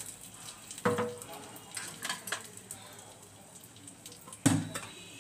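Bay leaf and crushed garam masala sizzling faintly in hot oil in an aluminium kadai, with scattered small crackles. Two sharp knocks, about a second in and, loudest, about four and a half seconds in, the first leaving a short metallic ring.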